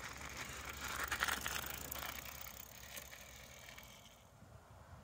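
Mountain bike tyres crunching over a gravelly dirt trail, with fine rattling and clicking from the bike, loudest about a second in and dying away near the end.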